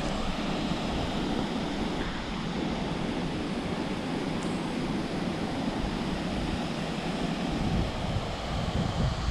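Waterfall pouring into a pool: a steady, dense rush of falling water with a deep rumble underneath.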